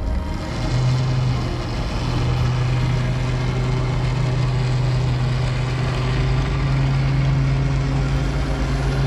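Lake passenger boat's engine running with a steady low hum as the boat pulls away from the pier, over a steady hiss.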